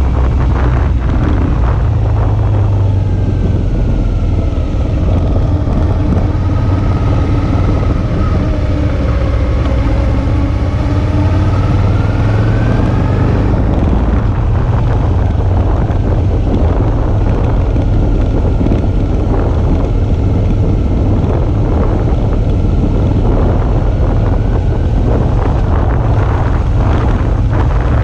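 Suzuki V-Strom 650's 645 cc V-twin engine running under way, heavily mixed with wind rushing over the camera microphone. The engine's pitch dips and then rises again in the first half, and does so more faintly later.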